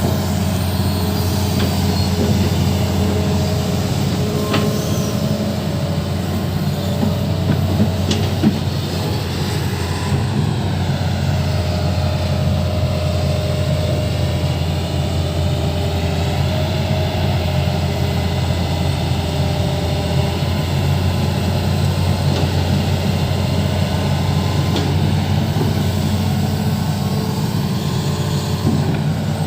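Hitachi 210 excavator's diesel engine running steadily at a constant speed, with a few faint metallic clicks.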